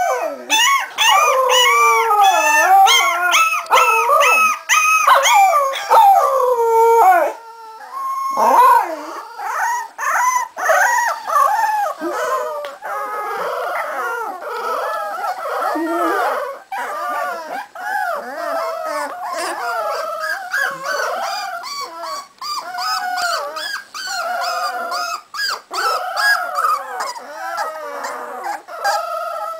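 Several 3½-week-old Cardigan Welsh Corgi puppies howling together, their high, wavering voices overlapping. The howling is loudest for the first seven seconds, breaks off briefly, then carries on a little softer.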